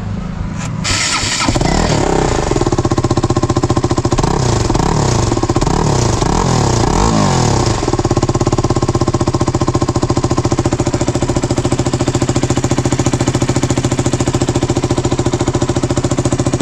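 KTM RC 200's single-cylinder engine, with its stock exhaust, blipped about five times in quick succession, each rev rising and falling, then settling into a steady idle.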